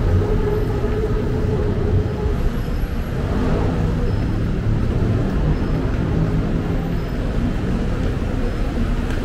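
Road traffic: a steady rumble of vehicle engines and tyres on a busy city road, with a held engine hum that stops about two seconds in.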